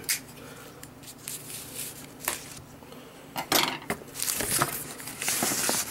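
Rustling of a white wrapping sheet and light knocks against the moulded pulp tray as a Wacom Intuos tablet is pulled out of its box. The rustling thickens over the last second and a half.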